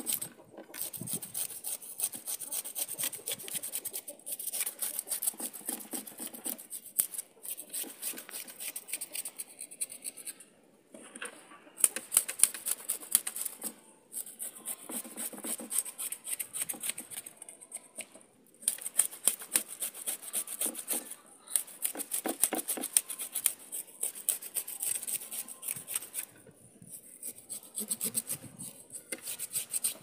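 Knife scraping the scales off a whole cavalli on a wooden chopping board: runs of fast rasping strokes, broken by short pauses every few seconds.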